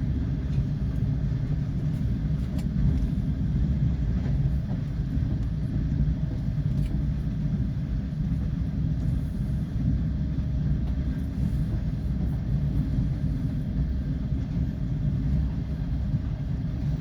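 Passenger train running at speed, heard from on board: a steady low rumble of the wheels and carriage with a few faint clicks.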